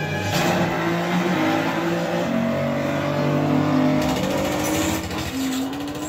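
Film soundtrack of a car chase, car engines revving with changing pitch, played through a home-theatre speaker system and heard in the room.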